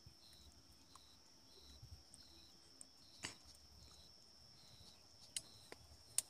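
Insects chirping: a steady high-pitched trill with a shorter chirp repeating a little under twice a second. A few faint clicks and small water sounds from hands handling the floating seedlings, the clearest about three seconds in.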